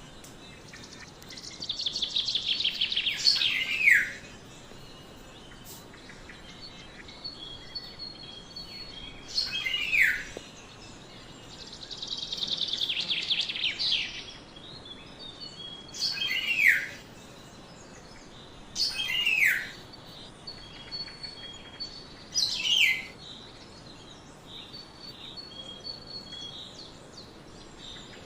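Black-naped oriole calling: two long harsh, rasping calls of about two seconds each, both ending in a downward slide. Between and after them come about four shorter calls that drop in pitch, spaced a few seconds apart.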